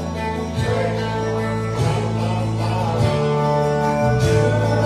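Instrumental break in a country gospel song: guitar-led backing band playing sustained chords over a moving bass line, between sung verses.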